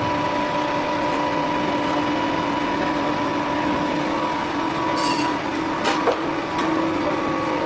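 Industrial machinery of a plywood hot press line running with a steady hum, with a brief hiss about five seconds in and a couple of sharp knocks just after.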